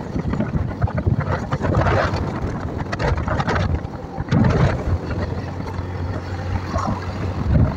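Motorcycle engine running with a steady low drone under road noise, with wind buffeting the microphone in uneven gusts while riding.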